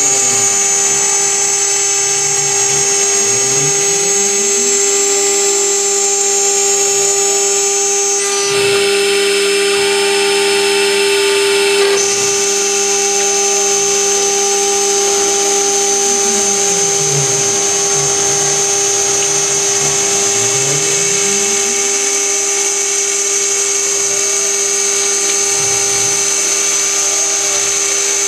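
Metal CNC router's spindle running steadily with a high whine as its end mill cuts aluminium plate under coolant spray. Lower tones glide up and down again and again. The cutting noise turns harsher for a few seconds about a third of the way in.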